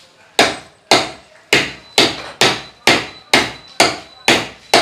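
A hammer striking over and over at an even pace, about two blows a second, each ringing briefly.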